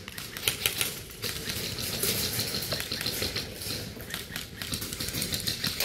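Airsoft guns firing in rapid bursts: quick runs of sharp mechanical clicks that come and go.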